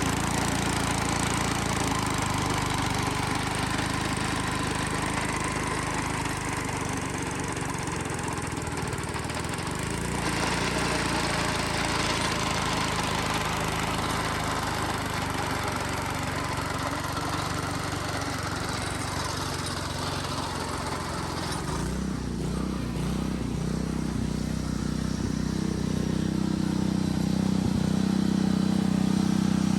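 Billy Goat sod cutter's small gas engine running steadily while the machine cuts sod. Its note changes about two-thirds of the way through, and it gets a little louder near the end.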